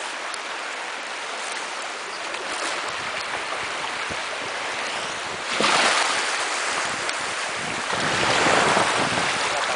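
Choppy river water from a passing passenger boat's wake washing and splashing, with two louder surges of wave wash, one about halfway through and one near the end.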